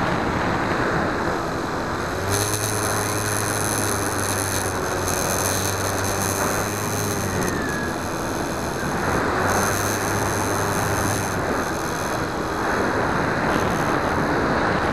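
Onboard audio from a Skywalker 1900 FPV plane in flight: a steady rush of wind over the microphone, with the electric motor's whine coming in about two seconds in, easing off around seven seconds, and coming in again briefly around ten seconds.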